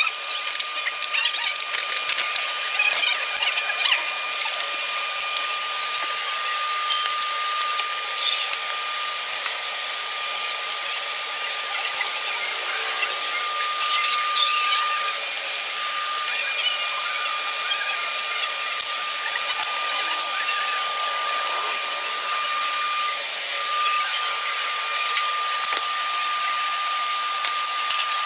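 A machine runs in the background with a steady high whine and hiss. Over it come scattered clicks and taps as metal tubes, bolts and nuts are handled and fitted into a steel frame.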